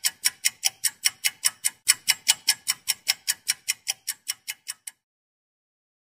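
Rapid, even ticking, about five ticks a second, growing fainter and stopping about five seconds in.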